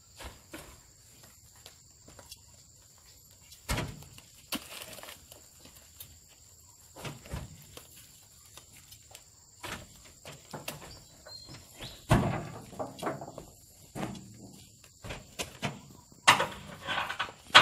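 Heavy oil palm fruit bunches thudding one at a time as they are heaved into a truck bed, a thud or knock every two to three seconds, the loudest about twelve seconds in. A steady high-pitched insect drone runs underneath.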